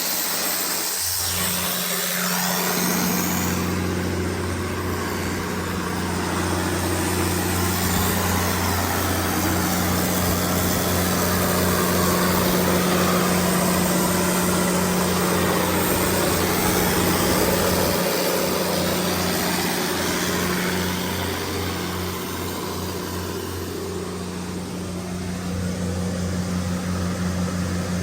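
Cummins KTA19-G4 turbocharged inline-six diesel engine of a 500 kW generator set, settling within the first few seconds into a steady run at constant speed.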